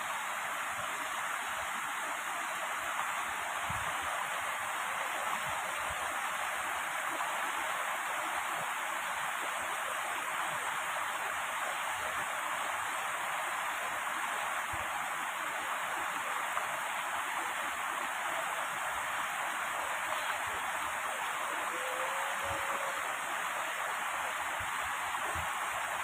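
Shallow mountain stream rushing and splashing over boulders, a steady even rush of water.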